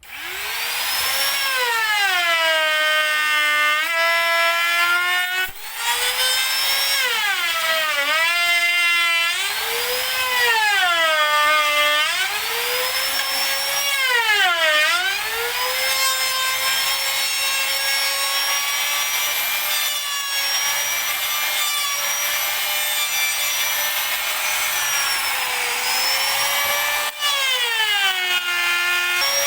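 Electric woodworking power tool starting up and cutting wood. Its motor whine drops in pitch again and again as it slows under load, then climbs back between cuts.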